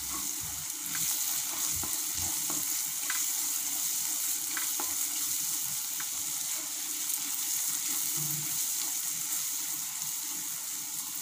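Chopped onions sizzling steadily as they fry in oil in a cast-iron pan, stirred and scraped with a wooden spatula, which gives a few light knocks against the pan.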